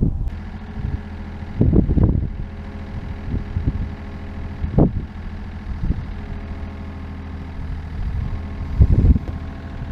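Diesel engine idling steadily, with a few short louder bumps or rustles on top about 2, 5 and 9 seconds in.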